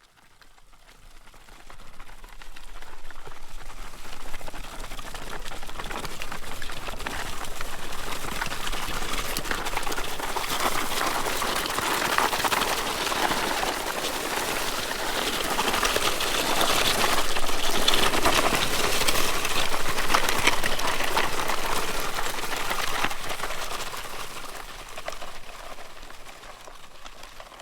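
Something dragged across gravel: a continuous scraping, crunching rasp of loose stones, rising in from nothing over the first couple of seconds, loudest a little past the middle and fading away near the end.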